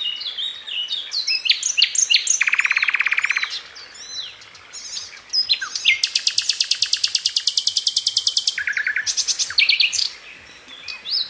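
Songbird singing a varied song of quick high chirps and whistled glides, broken by fast rattling trills. One trill comes about two and a half seconds in, and a longer one of more than two seconds comes about six seconds in, with brief pauses between phrases.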